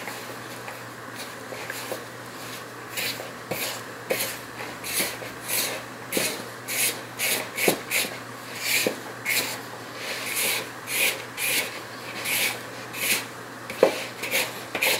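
Hand mixing shaggy pizza dough in a plastic bowl: rhythmic rasping strokes of hand, flour and dough scraping against the bowl, about two a second, starting about three seconds in.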